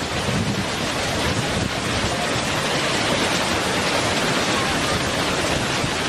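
Waterfall cascading over rock ledges, a steady rushing of falling water.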